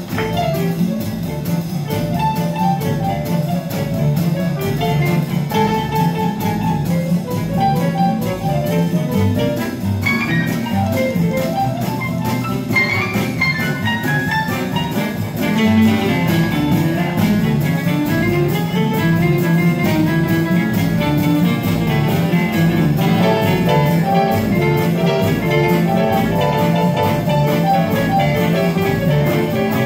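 Small swing jazz band's rhythm section (piano, acoustic guitar, upright bass and drums) playing an instrumental passage while the clarinets rest. The music gets a little louder about halfway through.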